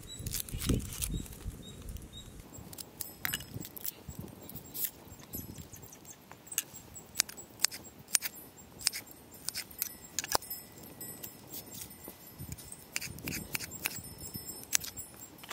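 Kitchen knife slicing a small onion held in the hand, a series of irregular crisp clicks as the blade cuts through, with the slices dropping into a stone mortar.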